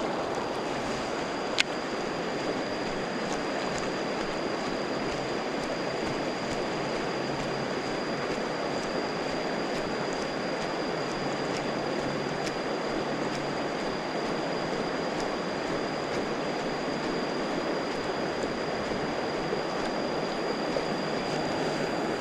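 Steady rush of flowing river water, with a thin high tone held steady above it and one sharp click about a second and a half in.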